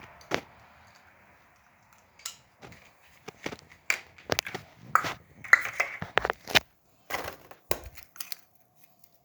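Small plastic toys and wrapped candies being handled: irregular sharp clicks and crinkles, busiest in the middle.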